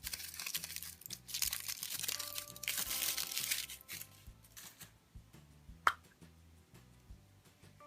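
Foil wrapper of a Kinder Surprise egg crinkling and tearing as it is unwrapped, for about four seconds, then quieter handling with a single sharp click about six seconds in.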